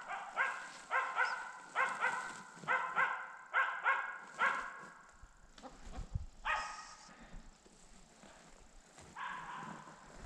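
Hunting dog barking at a capercaillie hen it holds treed: a fast string of barks, about two a second, for the first five seconds, then two single barks a few seconds apart.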